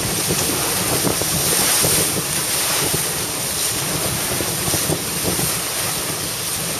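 Wind buffeting the microphone over water rushing and splashing along the hull of a moving boat, a steady noise throughout.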